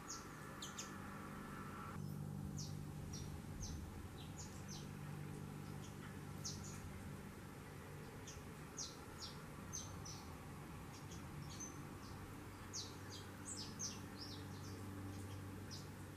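Small seed-eating birds in a mixed feeding flock of saffron finches and a seedeater, giving many short, high chirps at irregular intervals, bunched more closely near the end, over a faint steady low hum.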